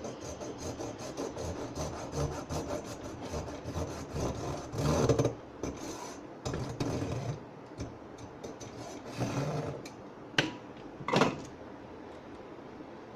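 Irregular rasping and scraping strokes of a hand tool working at a humidifier's hard plastic casing, with two sharper knocks near the end.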